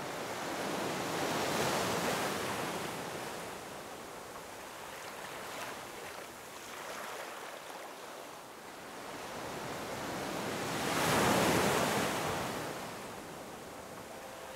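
Ocean surf: waves breaking and washing, swelling up about two seconds in and again, louder, around eleven seconds.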